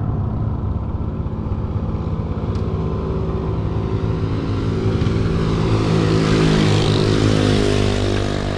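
Yamaha Aerox 155 scooter's single-cylinder engine running steadily under way. A rising hiss of wind and road noise grows louder from about halfway through.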